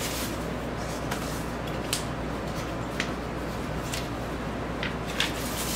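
Soft rustling and scraping of paper and cardboard as a vinyl record is slid out of its paper inner sleeve and album jacket: a few short, faint scrapes over a steady low hum.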